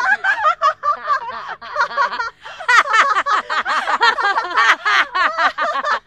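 Several women laughing hard together in overlapping bursts, with a brief lull about two seconds in.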